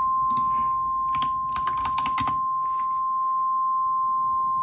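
NOAA Weather Radio warning alarm tone from station KHB36: a steady 1050 Hz tone held at one pitch, signalling that a warning broadcast follows. A quick burst of computer keyboard typing sounds over it between about one and two and a half seconds in.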